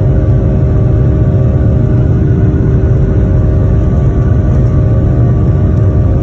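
Cabin noise of a Boeing 737-900 taxiing: a steady low rumble with a constant hum of several engine tones from its CFM56-7B turbofans at low power, heard inside the cabin.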